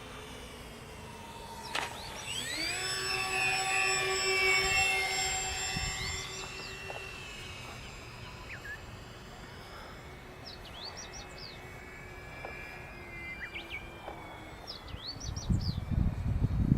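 Electric motors and propellers of a radio-controlled flying boat model whining, rising quickly in pitch about two seconds in, holding, then fading away with a slight drop in pitch. Birds chirp now and then, and a low rumbling noise comes in near the end.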